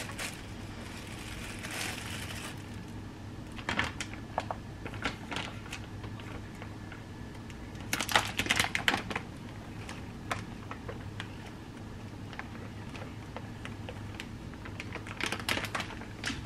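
Thin plastic bag rustling and crinkling as it is opened on a kitchen scale and flour is poured in from a paper bag, in short crackly bursts about four, eight and fifteen seconds in. A low steady hum runs underneath.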